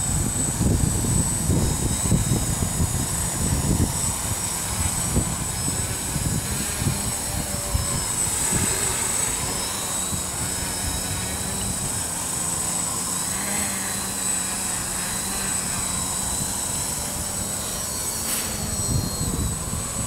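Small quadcopter's electric motors and propellers humming steadily as it hovers and flies low. Gusts of wind buffet the microphone, heaviest in the first few seconds and again near the end.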